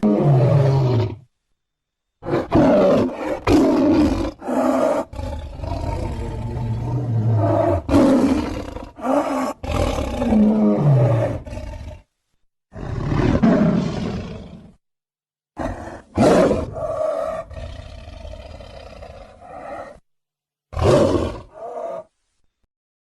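Sabre-toothed cat (Smilodon) creature sound effects: a string of roars and growling snarls, some falling in pitch, set apart by abrupt gaps of silence.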